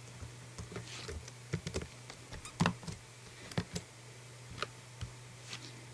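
Typing on a computer keyboard: scattered, irregular key clicks, over a steady low hum.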